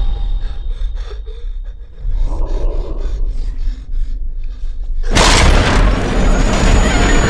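Horror-trailer sound design: a deep low rumble under faint rapid ticking, then a loud rushing blast of noise about five seconds in that lasts a couple of seconds.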